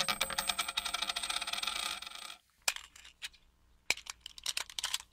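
Rapid metallic clinking and jingling with a ringing tone, about two and a half seconds long, followed by a few scattered clicks.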